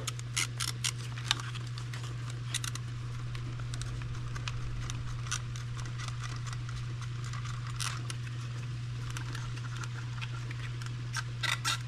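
Light clicks and taps of hard plastic fuel pump housing and filter parts being pulled apart and handled, in a few short clusters near the start and again near the end, over a steady low hum.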